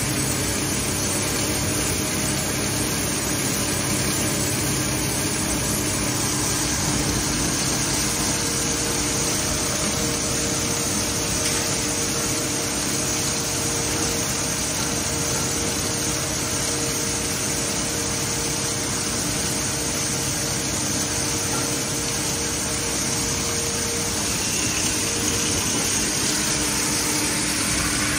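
Industrial shredder and its pneumatic conveying blower running steadily: a continuous machine hum with a rush of air and a few steady tones.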